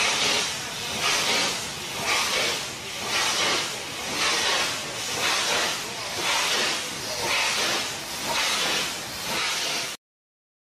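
Meter-gauge steam locomotive moving slowly, venting steam from its cylinders in rhythmic hissing chuffs about once a second. The sound cuts off suddenly near the end.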